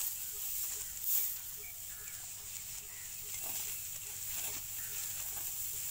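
Hand sickle cutting through ripe wheat stalks near the ground: a run of short, crisp rustling strokes as handfuls are sliced, the sharpest about a second in.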